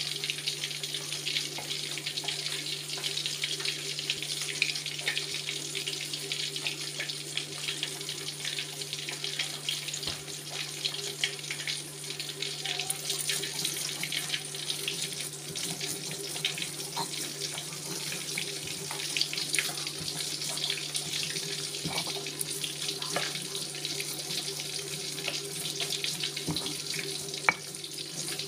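A stone pestle grinding wet chili paste in a stone mortar: a continuous gritty, wet crushing and scraping, full of small clicks, over a steady low hum.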